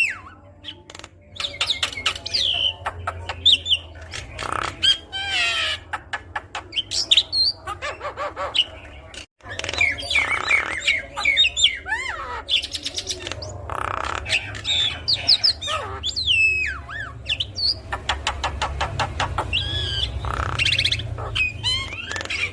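Javan myna singing a varied, chattering song: whistled notes and pitch glides mixed with harsh squawky bursts and several fast clicking rattles. The song drops out completely for a moment about nine seconds in.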